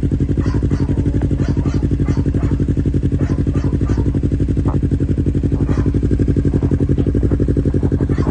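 Yamaha R3/MT-03 parallel-twin engine idling steadily through an Akrapovic GP Line full-system exhaust with its dB killer silencer fitted, the exhaust pulses coming evenly with no revving, and light clicks over the top.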